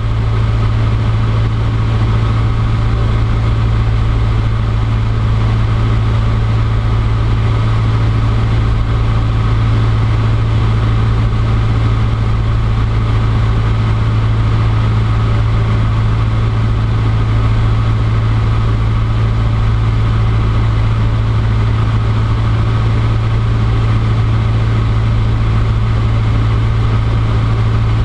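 Cessna 150D's Continental O-200 four-cylinder engine and propeller droning steadily in flight, heard from inside the cockpit. It is a loud, constant low hum with no change in power.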